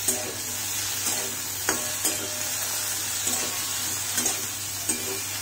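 Potatoes, bitter gourd and tomatoes sizzling in mustard oil in a metal wok while a metal spatula stirs them, with a steady hiss and several sharp clinks and scrapes of the spatula against the pan.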